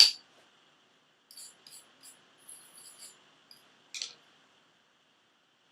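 Slag hammer chipping at a fresh tack weld: one sharp metal strike at the start, then light scraping and tapping on the steel, and one more sharp click about four seconds in.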